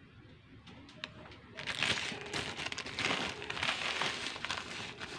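Plastic bag of sugar crinkling and rustling as sugar is scooped out with a spoon, starting about a second and a half in and going on in irregular crackles.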